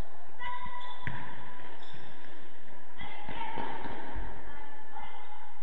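Futsal ball being kicked and bouncing on a hard sports-hall floor: a few sharp thuds spaced a second or two apart, echoing in the large hall.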